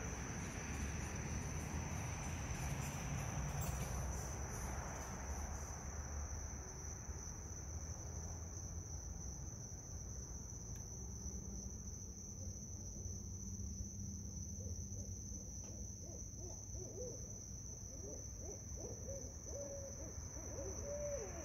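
Barred owls hooting at night, with a cluster of short wavering calls near the end. A steady high-pitched insect drone runs underneath.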